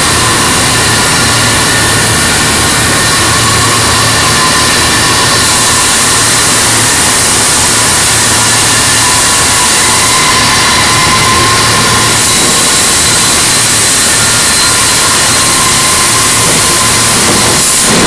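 Loud, steady industrial machinery noise with several constant whining tones and a low hum, from an overhead crane moving a clamped steel plate amid steel-shop machinery. The whine shifts a little about two-thirds of the way through.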